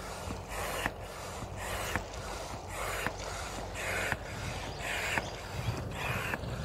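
Hand air pump inflating an inflatable kayak: a rhythmic rush of air with each stroke, about one stroke a second, often with a click as a stroke begins.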